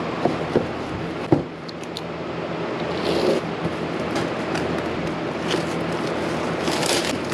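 Steady whir of many computer fans from running GPU mining rigs, with a low hum under it. A few sharp clicks near the start and two short rustles, one near the middle and one near the end, from handling packaging.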